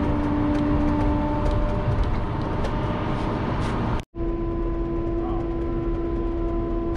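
Feller buncher's diesel engine and hydraulics running steadily, heard from inside the cab, with a constant whine over the engine noise. The sound breaks off for an instant about four seconds in and carries on at a slightly higher pitch.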